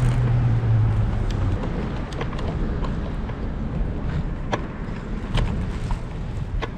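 Bicycle rolling over asphalt, with wind rumbling on the bike-mounted camera's microphone, a low steady hum during the first second or so, and a few sharp clicks and knocks from the bike rattling over bumps in the road.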